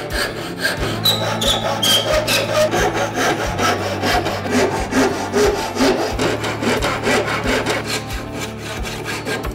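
Small brass-backed hand saw cutting into the ends of thin wooden battens with a steady run of short back-and-forth strokes.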